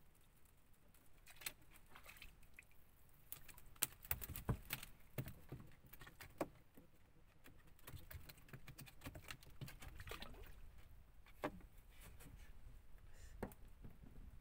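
Faint scattered clicks, taps and small splashes of a fish being hauled in by handline to the side of a wooden boat, busiest around four to five seconds in.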